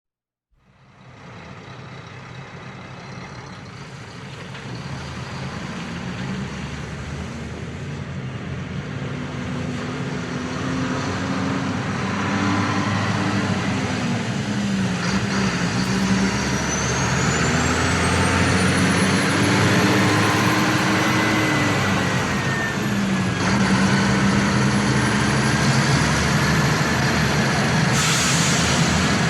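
Large road vehicle's engine approaching and growing steadily louder, its pitch dipping and rising several times as it arrives and turns a corner. A high whine rises over it from about halfway, and a short hiss comes near the end.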